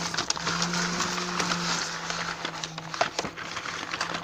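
A sheet of paper rustling and crinkling as it is moved by hand, with many small crackles, over a steady low hum that breaks off and returns.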